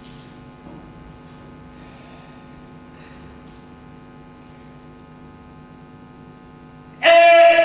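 A steady electrical hum with no other activity for most of the time. About seven seconds in, a loud, steady pitched tone with many overtones starts suddenly.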